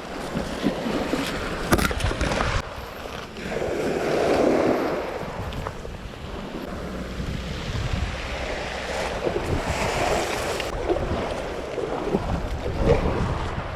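Sea water lapping and sloshing in uneven swells, the loudest about four seconds in, over a low rumble of wind on the microphone, with a few small knocks.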